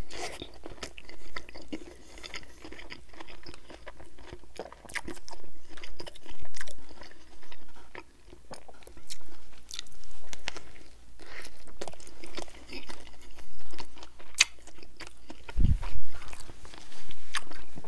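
A man chewing mouthfuls of a Burger King Whopper close to the microphone, with many short wet mouth clicks. A dull low thump near the end.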